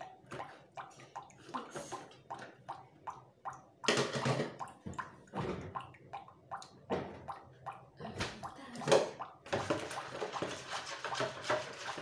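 Kitchen handling sounds while making dough: a run of light clicks and knocks from a spoon, milk jug and plastic mixing bowl, two louder clattering bursts around the middle, then a steadier rustling, sloshing noise over the last couple of seconds.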